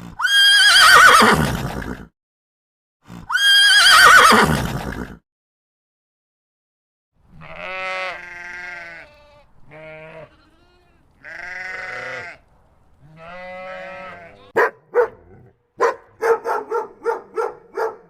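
Two long, loud sheep bleats falling in pitch, then a dog whining in four drawn-out calls and breaking into a quick run of yapping barks near the end.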